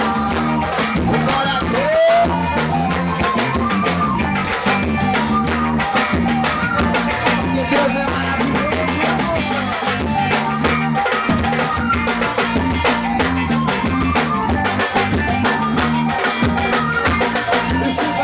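Live gospel forró band playing an instrumental break between verses, with a steady drum-kit beat and bass line under the melody.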